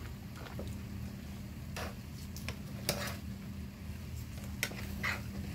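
A fork scraping and clicking against a clear plastic salad container as salad is picked up and eaten, in a few separate light clicks over a steady low hum.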